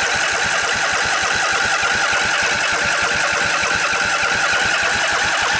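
Electric starter cranking a Briggs & Stratton Intek OHV V-twin mower engine over with steady, even pulses. It is on choke, turning over so the fuel pump can draw gas up and fill the empty carburetor float bowl.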